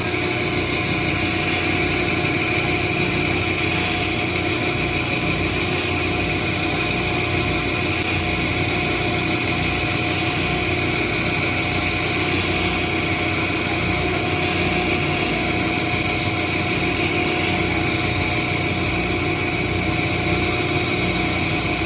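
Lapidary rock saw running and cutting through a clamped geode: a steady motor hum with steady whining tones that hold unchanged throughout.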